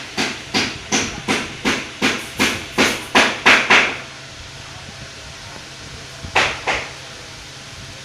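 Epson L130 inkjet printer running its automatic print-head cleaning cycle: a rapid run of rhythmic mechanical clicks, about three a second, for about four seconds, then a low steady hum with two more clicks about two-thirds of the way in.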